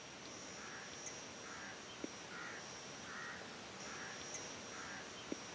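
Faint rural outdoor ambience: a distant bird calling over and over, roughly once a second, over a thin steady high whine, with a few soft ticks.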